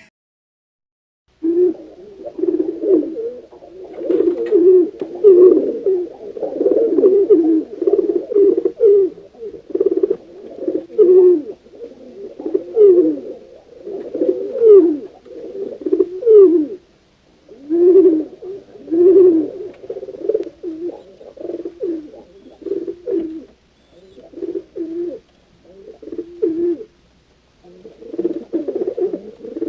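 Several pigeons cooing, their low calls overlapping continuously. The calls start after about a second and a half of silence and thin out with short pauses near the end.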